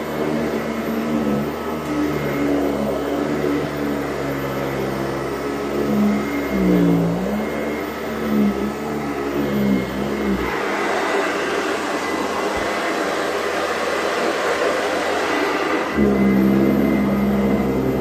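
Sanitaire SC886 commercial upright vacuum cleaner running on a rug, a steady motor hum whose pitch dips briefly about seven seconds in. From about ten seconds in, the hum gives way for several seconds to a louder rush of air, then returns.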